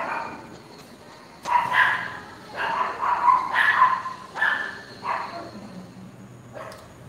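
A dog barking in short, high-pitched yips, several in quick succession, with a last one near the end.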